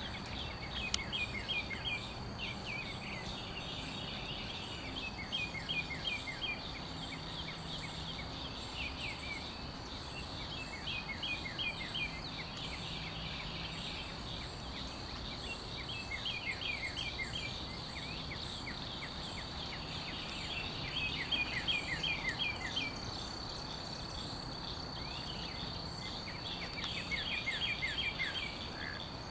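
A songbird repeats bursts of rapid, high, falling chirp notes every few seconds, over a steady high-pitched insect drone.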